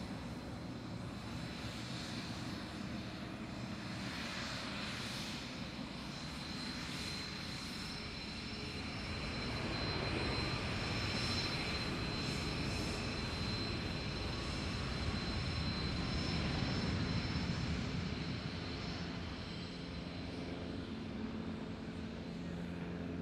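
Boeing 737 jet airliner's engines running: a steady high whine over a continuous rush of noise that swells louder through the middle and eases near the end.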